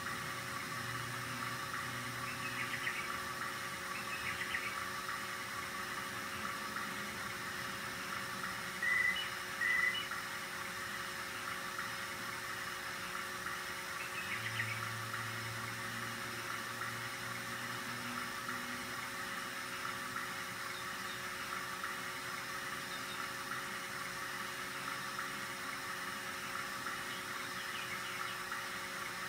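RCA 3700F cassette deck transport running: the motor and belt-driven capstan flywheel give a steady whir with a faint hum. Two short high chirps, about nine and ten seconds in, are the loudest sounds.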